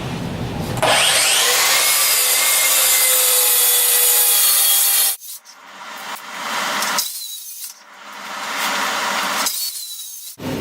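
Cordless track saw cutting through OSB sheet: the loud run starts about a second in, with a slightly falling whine over the cutting noise, and cuts off abruptly about halfway through. Two shorter, swelling stretches of sawing follow.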